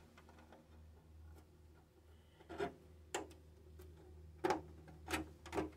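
Scissors snipping the clear polycarbonate RC car body, notching it at the wheel well: five short, sharp snips, the first about two and a half seconds in.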